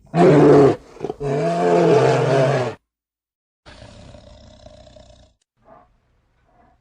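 A large animal calling: two loud, drawn-out pitched calls, the second longer, then a quieter, rougher call a second later.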